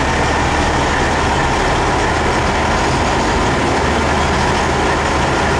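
Diesel truck engine idling steadily, a constant low rumble with a broad running noise over it.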